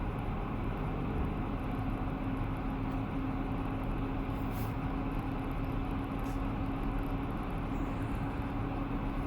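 Steady mechanical running noise with a constant low hum underneath.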